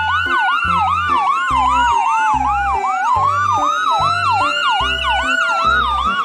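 Ambulance siren: a fast yelp of rapid, repeating up-and-down sweeps, about three a second, over a slower wail that falls through the first half and rises again. A steady low beat runs underneath.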